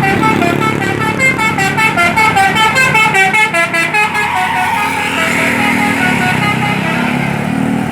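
Bus "telolet" horn, a multi-tone musical horn, playing a fast tune of short notes stepping up and down for about four and a half seconds. Vehicle engine and road noise follow.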